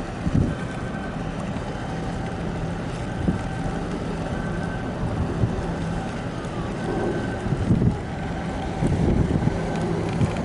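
A boat's engine running with a steady low hum over water noise, while wind buffets the microphone in irregular low thumps.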